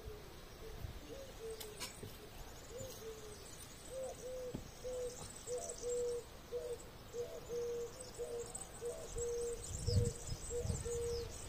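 A steady run of short, low hooting calls at one pitch, about two to three a second, with faint high chirps above them.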